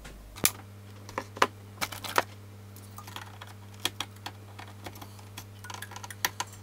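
Irregular light clicks and taps of hands handling a vintage radio amplifier's circuit board and metal chassis, over a steady low hum.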